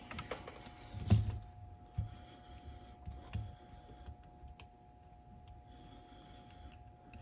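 Light clicks, taps and small knocks of hands and tools working on a cassette deck during reassembly, the loudest knock about a second in, over a faint steady tone.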